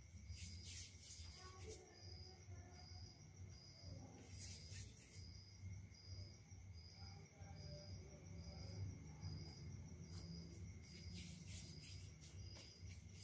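Near silence: a faint high chirp repeating evenly about every 0.7 seconds, typical of a cricket, over low room hum, with a few soft rustles.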